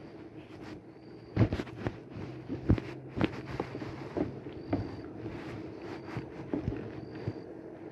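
Irregular knocks and thumps in a small fishing boat as a fish that has just been landed in a net is brought aboard, loudest in the first few seconds, over a steady low hum.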